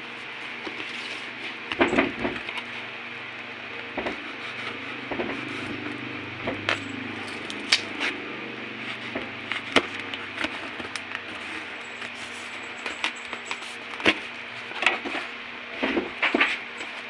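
A blade slitting packing tape on a cardboard shipping box, then the cardboard flaps being pulled open: irregular scrapes, crackles and sharp clicks over a steady hiss.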